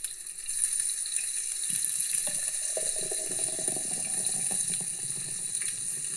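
Sausages sizzling on a grill: a steady hiss with fine crackling.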